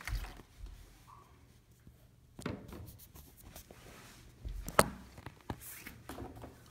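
A partly filled plastic water bottle being handled, with scattered knocks and thuds on hard surfaces and one sharp knock about five seconds in.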